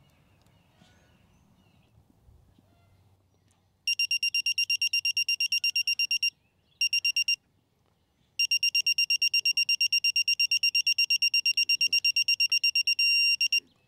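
Yellow Jacket 60648 digital torque wrench beeping rapidly, several beeps a second, in three runs starting about four seconds in, with a short steady tone near the end. The beeping is its signal that the flare nut is nearing the set 25.8 foot-pounds of torque.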